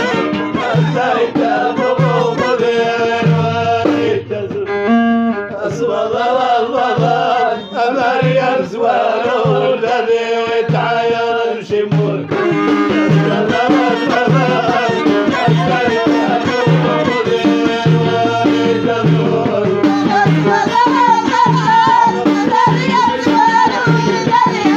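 Moroccan Middle Atlas folk music played live: a melody line, with violin heard just before, and singing over a steady hand-drum beat. A wavering melodic line stands out more strongly in the last few seconds.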